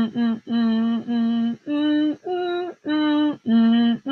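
A woman humming the tune of a counting-by-tens song: a string of even notes about half a second each, mostly on one pitch, with a couple stepping higher.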